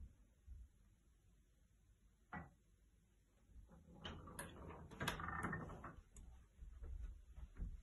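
Faint handling noise from a handheld phone camera being carried and turned, with a single click about two seconds in and a stretch of rustling and sharp clicks about four to six seconds in.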